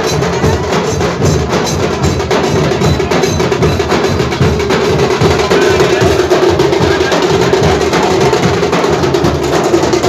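Procession band drums beating a fast, steady rhythm, with a sustained tone underneath.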